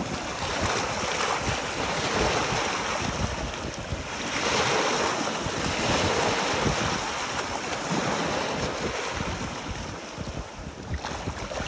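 Small lake waves washing in and breaking over rocks and pebbles on a stony shore, with wind buffeting the microphone. The wash swells louder in the middle.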